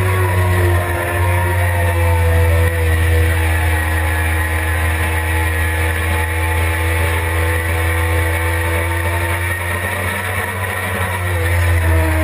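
Suzuki GSX-R600 inline-four engine running at high revs on track. Its pitch sags slowly through a long corner and climbs again near the end as it accelerates out, over a steady low wind rumble on the microphone.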